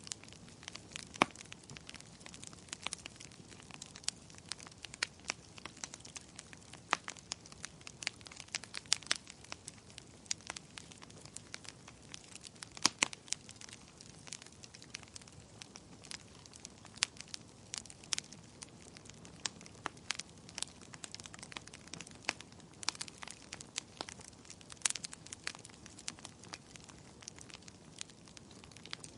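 Wood fire crackling in a fireplace: irregular sharp pops and snaps of varying loudness over a soft steady hiss of flames.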